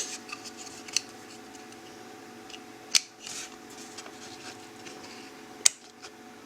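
Small hardware being handled: three sharp clicks spread over several seconds, with a brief rustle after the second, over a faint steady hum.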